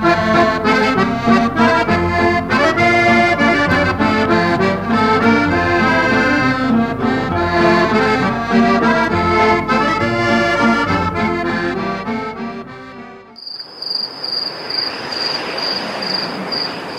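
Instrumental title music, which stops about thirteen seconds in. A steady, evenly pulsing high insect chirping follows over a soft outdoor hiss.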